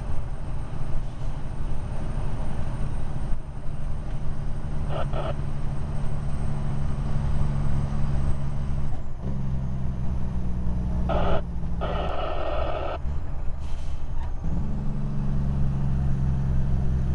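Heavy diesel semi-truck engine running, heard from inside the cab as a steady low drone. Its note changes about nine seconds in and again near fourteen and a half seconds, with a few short higher sounds over it in between.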